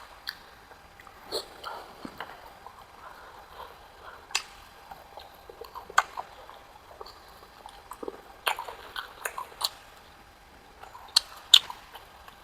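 Close-miked eating: a person biting and chewing food, with irregular wet mouth clicks and smacks, a few of them sharper and louder than the rest.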